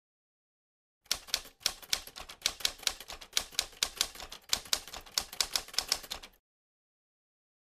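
Typewriter key strikes as a typing sound effect: a quick, uneven run of sharp clicks, about four a second. They start about a second in and stop suddenly after about five seconds.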